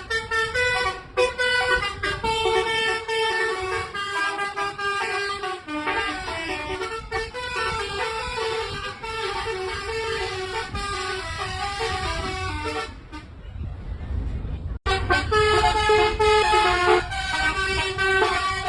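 Bus telolet horn, a multi-tone air horn playing a quick jingle of short stepped notes over low engine and road rumble. About two-thirds through it stops for a couple of seconds, leaving only the rumble, then the tune starts again.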